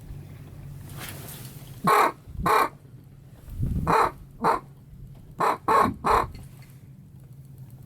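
Duck call blown in short, loud quacks: a pair, another pair, then a run of three.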